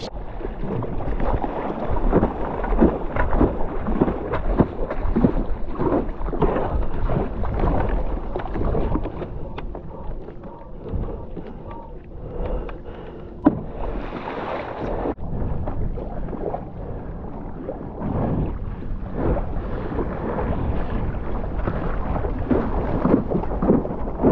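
Water splashing and rushing against a stand-up paddle foil board in choppy water, with wind buffeting the camera microphone.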